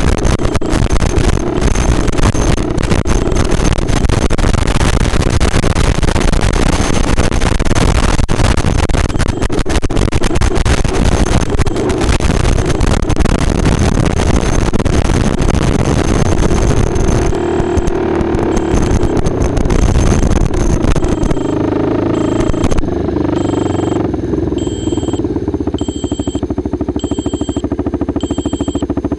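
Four-wheeler (ATV) engine running over rough ground with wind rush on the microphone; the engine eases off about two-thirds of the way in. Near the end an electronic buzzer beeps about once a second: the plane's failing low-battery buzzer, which now beeps instead of buzzing.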